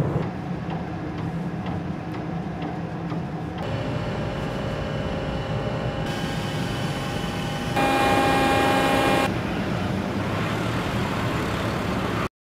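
Steady low machinery rumble with wind noise aboard a ship. From about a third of the way in, a steady machinery whine of several pitches joins it, loudest for about a second and a half a little past halfway. The sound cuts off abruptly at the end.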